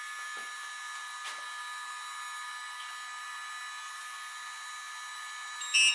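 Steady electronic whine and fan-like hiss from the bench battery-test gear while an 18 V lithium-ion battery discharges, with a couple of faint handling ticks. Near the end, the hobby charger starts a loud, rapid pulsing alarm beep: its lead to the battery has lost contact.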